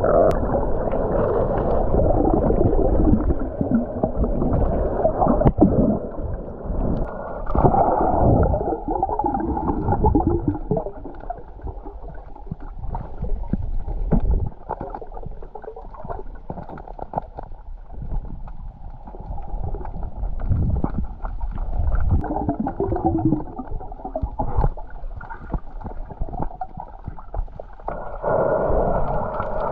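Muffled underwater water noise from a camera below the sea surface: gurgling and sloshing as a freediver swims, with scattered small clicks and knocks. It is louder at the start, briefly around a quarter of the way in, and again near the end.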